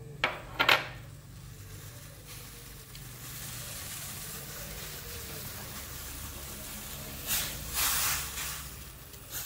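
Water in a stainless steel wok starting to sizzle on the stove, a steady hiss that builds from about two seconds in. Two short sharp knocks come just after the start. Near the end a plastic rice paddle scrapes and stirs the wet rice against the wok.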